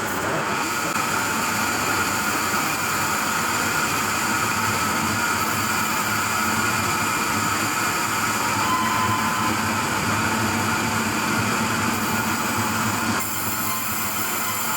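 Heavy sawmill machinery running steadily, a dense noise with steady high whining tones. The sound changes abruptly near the end.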